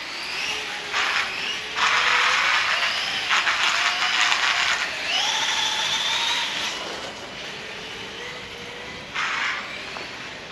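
Pro-Line Promoto-MX RC motorcycle's electric motor and geared drivetrain whining, the pitch rising and falling with the throttle. Several bursts of harsh hissing noise come and go, the longest lasting a few seconds early on and another short one near the end.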